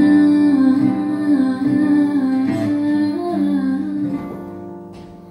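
Woman singing live with acoustic guitar accompaniment: she holds one long sung note with slight pitch movements over the plucked guitar, and the sound fades away from about four seconds in.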